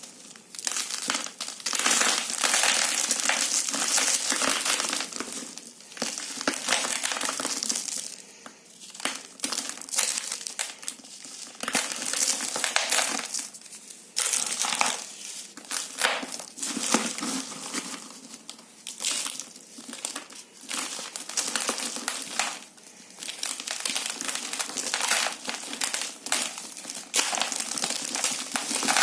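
A gritty, crumbly material being crushed and crumbled by hands: crisp crackling and grinding in irregular bouts, each a second or several long, with short pauses between squeezes.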